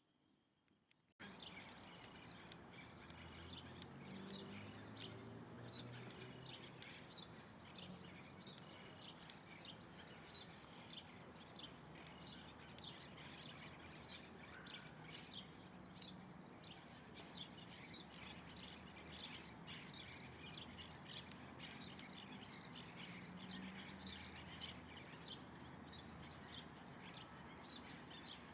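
Many small birds chirping over a steady background noise, which cuts in suddenly about a second in.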